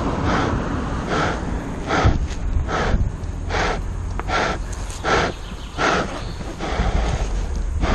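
A rider panting hard into a helmet microphone, one noisy breath roughly every 0.8 seconds, over a steady low rumble.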